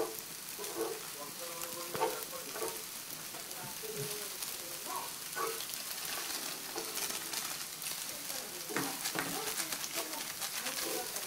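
Yakisoba noodles, pork and bean sprouts sizzling in an electric skillet as they are tossed and mixed with chopsticks after the sauce is added. A steady frying hiss with scattered light clicks of chopsticks against the pan and food.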